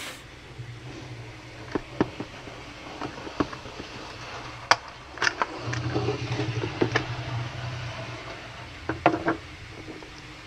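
Sharp plastic clicks and knocks as the body shell of a OO-gauge Hornby Class 155 model train is prised off its chassis, about a dozen in all, with a low hum in two stretches.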